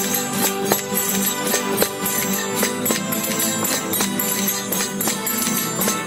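A traditional street rondalla is playing, with strummed guitars, Spanish lutes and an accordion, while a group of voices sings a folk song over a steady strummed beat of about three strokes a second.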